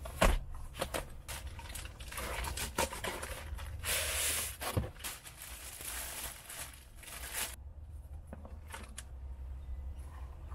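Rustling and clicking handling noises, busy for the first seven seconds or so and then sparser, over a steady low hum.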